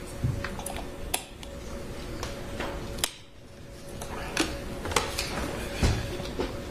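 Scattered clicks and knocks from handling a plastic water bottle and moving against a wooden witness stand, with one sharper knock about three seconds in. A faint steady hum sits underneath.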